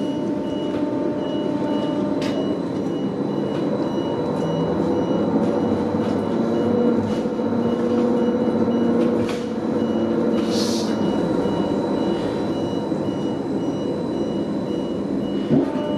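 Cabin sound of a Neoplan AN440LF-ETB electric trolleybus under way: the electric drive humming with several steady tones that shift in pitch and swell a little around the middle. A high electronic beep repeats steadily throughout, with a few light clicks and rattles.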